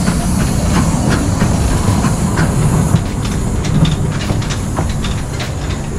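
Small 1908 Thomas Green & Son 0-6-0 saddle-tank steam locomotive working along the track. Steam hisses over a low rumble, with repeated irregular clanks and clicks from the engine and wheels.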